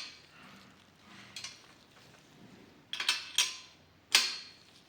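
Sharp metal clinks against a steel bicycle frame, a quick pair about three seconds in and a louder one about a second later, while the frame's rear triangle is being spread wider to take the wheel.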